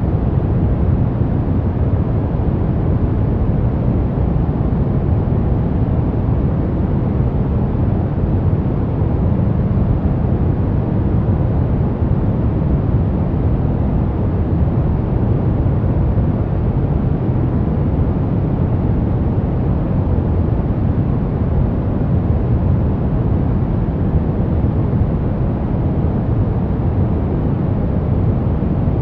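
Continuous noise track, sold as white noise for sleep and focus. It is steady and unchanging, heaviest in the low range and thinning toward the top, so it comes across as a deep, even rush rather than a bright hiss.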